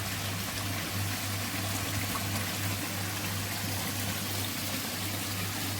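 Koi pond water running and splashing steadily, with a low steady hum underneath.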